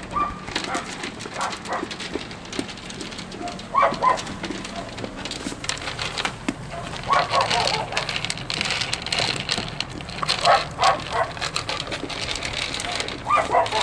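A dog barking in four short bouts of a few barks each, roughly three seconds apart.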